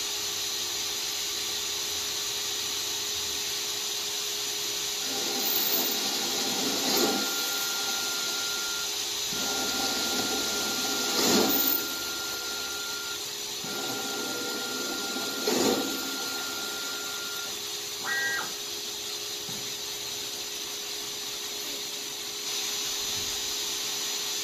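CNC-converted metal lathe running and cutting a pulley blank. The spindle hums steadily. Through the middle a steady high whine comes and goes, with three louder swells of cutting noise as the tool works the part.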